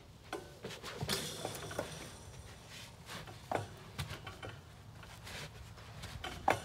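Scattered knocks, creaks and rustling as a person climbs off a metal step stool onto a spring-mounted Spin Doctor bucking training barrel and settles his weight on it; the sharpest knock comes near the end.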